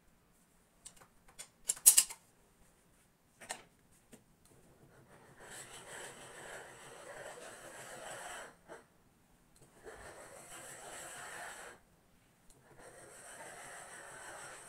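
A few light clicks of hangers on a metal clothes rail, then an upright garment steamer hissing in stretches of two to three seconds, with short breaks between, as its nozzle is run over a hanging garment.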